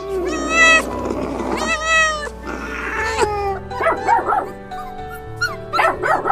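A cat meowing, two long wavering meows in the first half followed by shorter calls, over background music.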